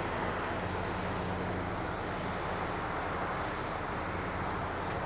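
Electric motor and propeller of a radio-controlled E-flite Piper Cherokee flying at a distance with landing flaps down, a steady, even whir with a faint low hum.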